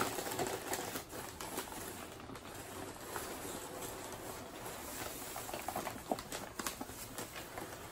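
Newspaper and shredded paper packing rustling and crinkling as hands dig through a cardboard box and pull out a wrapped bundle, with many small irregular crackles.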